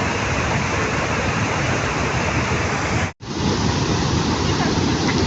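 Waterfall rushing: a steady, dense noise of falling water, broken by a sudden split-second dropout about three seconds in where the recording cuts.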